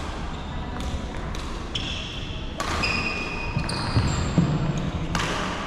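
Court shoes squeaking in short high chirps on a wooden sports-hall floor, bunched in the middle, with a few sharp knocks of badminton play and the hall's echo.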